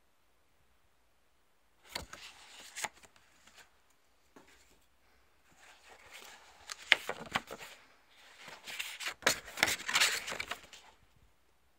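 Paper and cardboard handled close up: a folded card, paper wrapping and a small box rustling and tapping in three bursts of crinkling with sharp clicks, starting after a couple of seconds of quiet.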